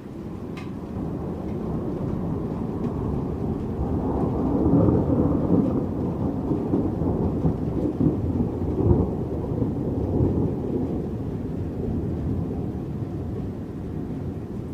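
Long rolling thunder rumble that builds over the first few seconds, is loudest around the middle, and slowly dies away.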